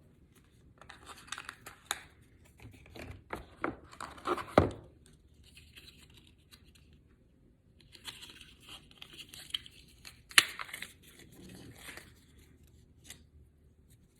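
Phone packaging being torn and crinkled by hand in two bouts of crackly tearing, with a few sharp knocks as the box is handled, the loudest about four and a half and ten seconds in.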